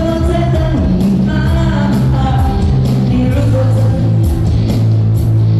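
A song playing loudly: a singing voice over a band with a steady drum beat and held bass notes.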